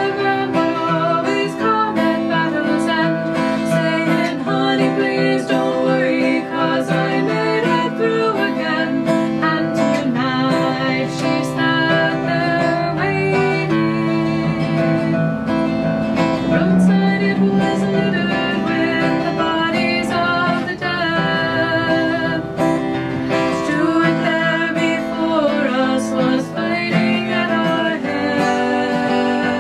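Country-style folk ballad: acoustic guitar strumming steadily, with singing.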